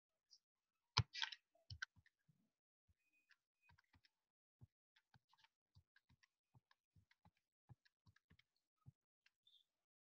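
Near silence with faint, irregular clicks, like computer keys or a mouse being pressed, a few a second, with a louder click and rustle about a second in.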